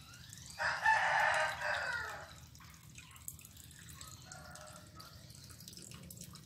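A rooster crowing once, loud, starting about half a second in and lasting about a second and a half, dropping in pitch at the end. A fainter, shorter call follows a few seconds later.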